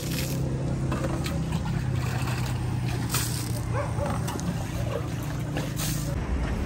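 Water scooped from a plastic bucket with a steel bowl and flung across paved ground, splashing about three seconds in and again near the end, over a steady low engine hum.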